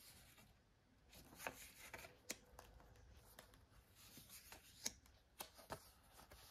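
Faint handling of old paper photograph prints: soft sliding and rustling with about half a dozen sharp little ticks as prints are picked up and laid down.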